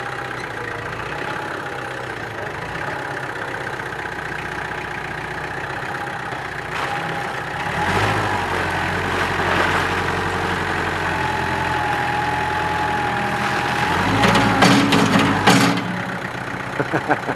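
Kubota L-series compact tractor's diesel engine running while the front-end loader is worked, the engine note growing heavier about halfway through. A steady whine sounds for a few seconds, then a quick run of sharp clanks near the end.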